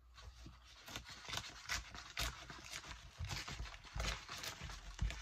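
Sheets of fibre paper being handled and torn by hand: irregular rustles and crackles with a few soft bumps on the desk.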